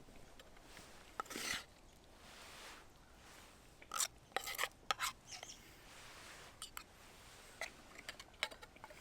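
Short scrapes and clicks of a utensil working food in a small titanium pan, in scattered bursts, the busiest between about four and five seconds in.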